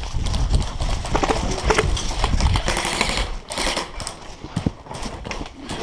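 Running footsteps on dry dirt and gravel, an irregular clatter of steps with gear rattling. Heavy low thumps from the jolting of a body-worn GoPro are strongest in the first couple of seconds.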